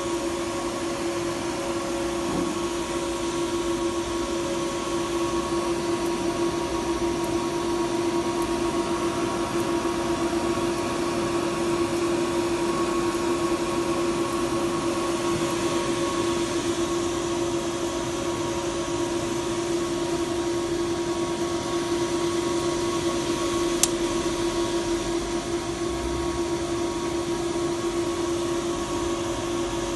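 Steady fan-like whirring with a constant hum from powered-up electronic test equipment, with a single sharp click late on.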